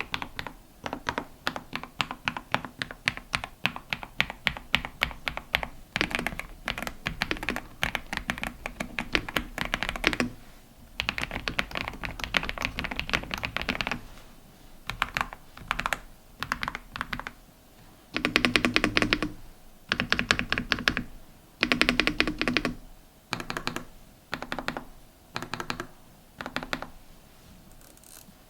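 Typing on an AULA F108 Pro mechanical keyboard fitted with pre-lubed linear switches, a smooth, creamy key sound. Continuous fast typing for about the first half, then shorter, louder bursts of keystrokes with brief pauses between them.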